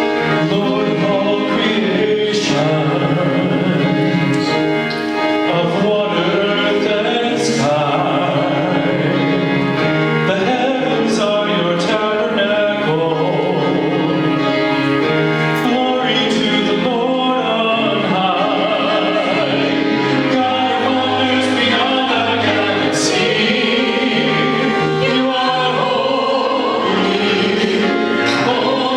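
Choral music: a choir singing with sustained, wavering voices over instrumental accompaniment.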